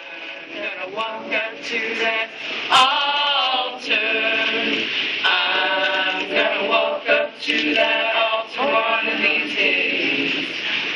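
A crowd of men and women singing a song together unaccompanied, with one sharp knock about three seconds in.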